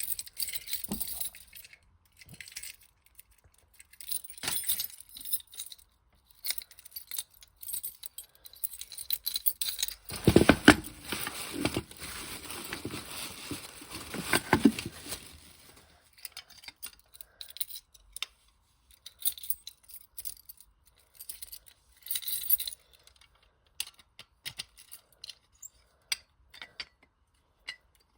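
Hands handling a Silent Knight SD-500-PS smoke detector and its packaging: scattered small plastic clicks, clinks and rattles, with a denser, louder spell of rustling and knocking partway through.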